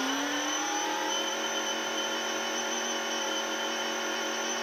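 Portland 1750 electric pressure washer running under load, its motor and pump giving a steady whine with spray hiss, while the gun sprays through a 3.0 nozzle into a lidded bucket at about 925 PSI. The pitch rises slightly in the first second, then holds steady.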